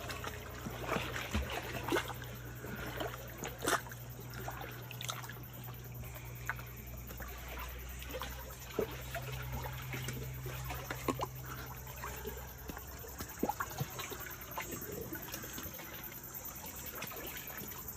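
Water trickling and lapping, with scattered small splashes and knocks, over a steady low hum that stops about two-thirds of the way through.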